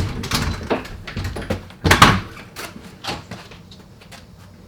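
A door being opened, with a sharp bang about two seconds in among smaller knocks and clatter.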